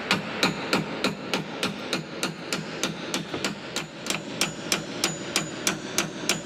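Fast, evenly spaced percussive knocking, about three and a half sharp strikes a second, keeping a steady beat throughout.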